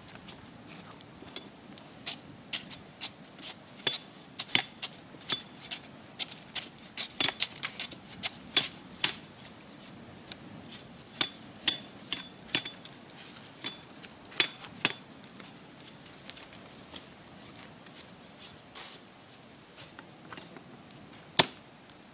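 A machete chopping at a long wooden pole: a run of sharp, irregular strikes, each with a brief metallic ring, thickest over the first fifteen seconds and then thinning to a few, with one more near the end.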